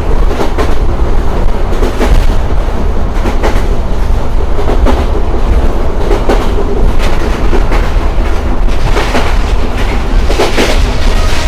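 Express passenger train running at speed: steady rumble with the wheels clicking over the rail joints in a clickety-clack, the clicks strongest near the end.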